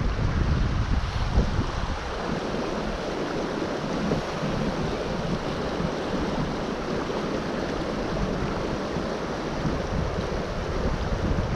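Creek water rushing steadily, with wind buffeting the microphone in the first couple of seconds.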